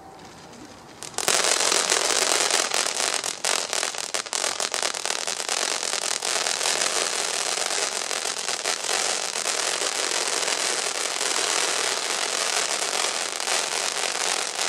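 Piromax Fountain 3 firework fountain catching about a second in and spraying sparks with a loud, steady hiss full of fine crackling.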